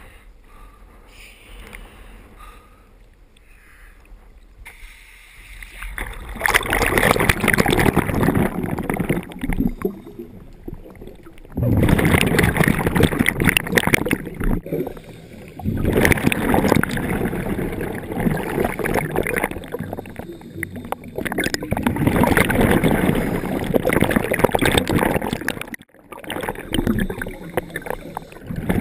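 A scuba diver's exhaled regulator bubbles, heard underwater through the camera housing. They come as loud gurgling surges a few seconds long, with short quieter gaps between breaths. The first five seconds are faint.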